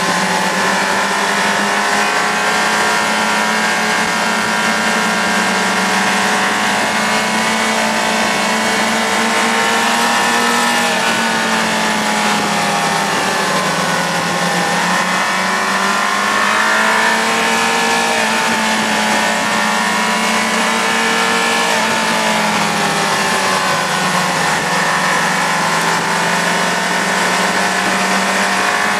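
Sport motorcycle engine heard from on board at riding speed, its revs rising and falling through the bends, over steady wind rush.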